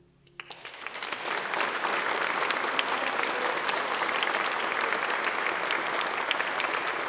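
Audience applauding: a few claps start about half a second in, just as the last sustained chord dies away, and quickly swell into steady applause.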